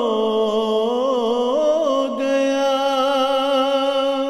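A solo voice singing an Urdu nazm (devotional poem), drawing out one line into long held notes with vibrato and ornamented turns.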